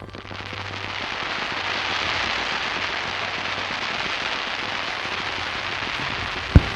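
Fireworks crackling in a dense, continuous fizz of many small reports, building up over the first second or two, with one loud boom of a shell burst near the end.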